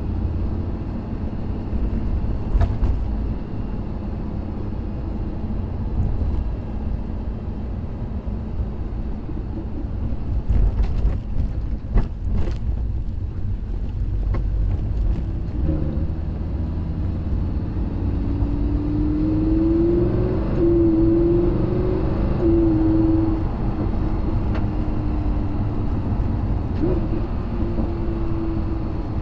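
Lamborghini Huracan LP610-4's V10 engine and road rumble heard from inside the cabin while driving. There are a few sharp knocks around the middle, and a steady engine drone holds over the last third.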